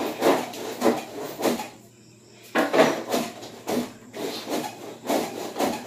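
Repeated scraping strokes, about three a second, with a short pause about two seconds in.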